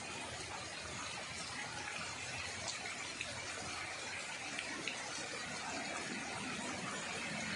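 Heavy rain and floodwater making a steady hiss, with a few faint ticks.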